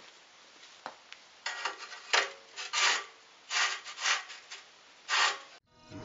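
Short rough scraping strokes, about six of them, from a soft refractory brick being rubbed and slid across the cutoff saw's metal base.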